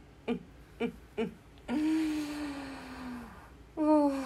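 A woman's voice without words: a few short hums, then two drawn-out, breathy vocal sounds that slide down in pitch, the first about two seconds in and the louder second near the end.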